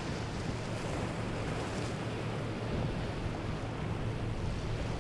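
Steady low drone of a motor yacht's engines at slow cruise, mixed with the rush of its bow wave and choppy inlet water. Wind buffets the microphone.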